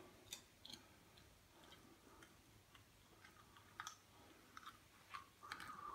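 Near silence: room tone with a scattering of faint, short clicks.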